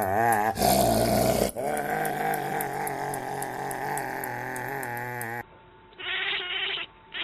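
A pet animal's drawn-out, wavering call, with a loud noisy burst about a second in. A little past five seconds it cuts to short, repeated cries.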